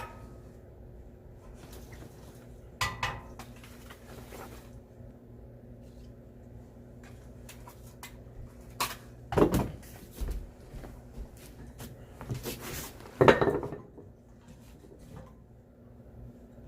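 A few scattered knocks and clatters of objects being handled, two of them louder, about nine and thirteen seconds in, against a low steady background.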